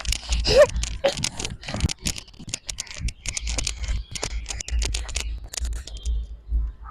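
Rapid, irregular rustling and crackling clicks over a low steady rumble of wind on the microphone.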